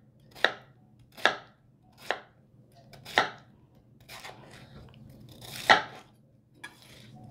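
Kitchen knife chopping a peeled pineapple spear into chunks on a plastic cutting board: short, sharp knocks of the blade through the fruit onto the board, roughly one cut a second.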